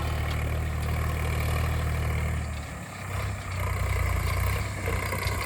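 Diesel tractor engine running steadily, its note dropping briefly about halfway through and then coming back stronger.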